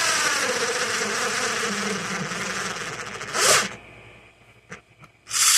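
Small battery electric screwdriver's motor whining as it drives a small screw into wood, the pitch sagging as it bogs down under the load. It stops about three seconds in, followed by a brief harsh burst and another near the end.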